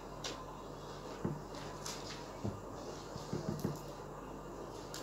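Faint rustling and a few soft clicks from hands handling a sheet of paper and clear sticky tape.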